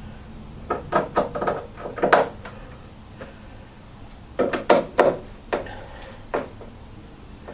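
Short knocks and clicks on a wooden speaker cabinet as the screws holding a driver are tightened around its rim, in two bursts with a pause between.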